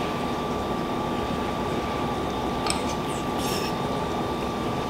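Steady mechanical room hum, with a single light clink of a metal spoon against a ceramic bowl a little past halfway through.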